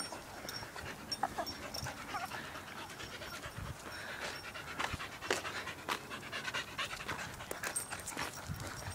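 A dog panting hard in quick rhythmic breaths, with scattered sharp clicks.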